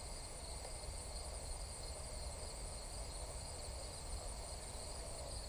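Steady outdoor insect chorus, a continuous high shrilling in two bands, over a low, uneven rumble.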